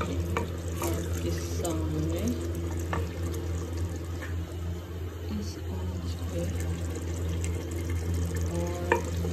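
Thin mash (urad) daal being stirred with a wooden spoon in a clay handi: the liquid sloshes and gurgles, and the spoon knocks lightly against the clay pot a few times, over a steady low hum.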